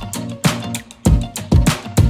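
Music with a steady drum beat and a bass line.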